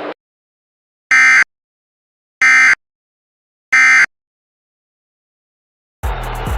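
Emergency Alert System end-of-message data signal: three identical short bursts of digital warbling about 1.3 s apart, marking the end of the warning. About six seconds in, the station's regular programme audio cuts back in.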